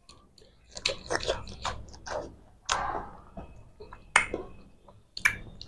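Wet mouth sounds of ripe mango slices being eaten by hand: scattered lip smacks, tongue clicks and short slurps, with a sharper click about four seconds in.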